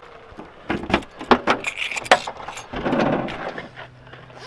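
Car keys jangling and clicking as a key is worked in a car's rear tailgate lock. There are several sharp clicks in the first two seconds, then a longer burst of noise about three seconds in.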